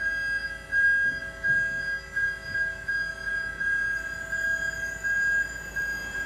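Mezzanine deck lift in a truck trailer running as the deck of bread crates rises: a steady high-pitched whine with a faint regular flutter over a low rumble.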